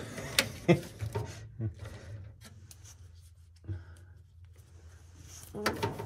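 Handling noises inside a furnace's blower compartment: a few sharp clicks and knocks, then lighter rubbing as wiring and multimeter test leads are moved about, over a steady low hum.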